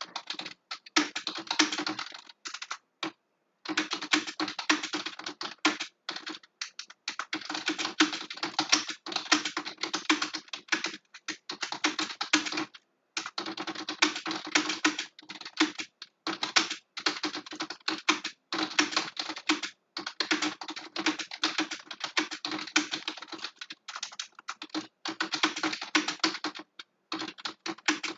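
Fast typing on a computer keyboard: keys clicking in quick runs, broken by short pauses.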